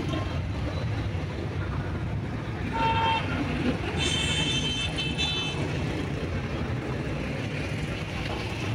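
Steady road and engine rumble heard from inside a moving car in city traffic, with a vehicle horn sounding briefly about three seconds in and a longer, higher horn from about four to five and a half seconds.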